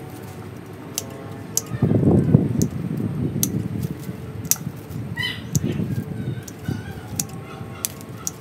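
Pruning shears snipping twigs of a ficus bonsai, a sharp click every second or so at an irregular pace, amid the rustle of branches and leaves being handled. The rustling is loudest about two seconds in.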